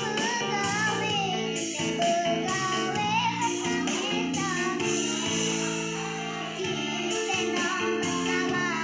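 A girl singing a melody over an instrumental backing track, her voice hoarse from a cough.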